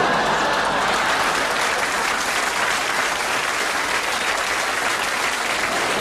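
Studio audience applauding, a steady dense clapping.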